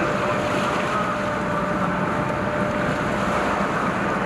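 Steady engine hum from boats, over a continuous wash of sea water and wind.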